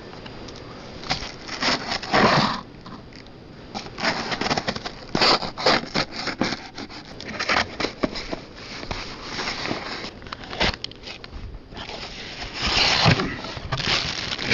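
A mailed package being opened by hand: irregular rustling, crackling and scraping of packaging, with short sharp bursts.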